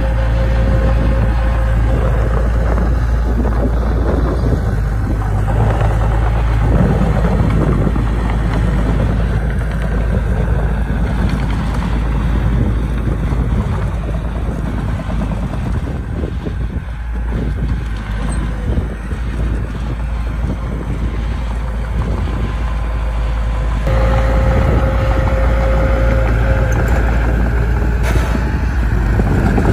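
Diesel engine of heavy earthmoving machinery running under load, with a steady high whine at times. It eases off through the middle and picks up again about two-thirds of the way through.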